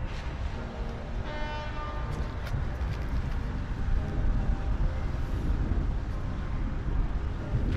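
Wind buffeting the microphone in a steady low rumble. About a second and a half in, a brief pitched tone sounds over it.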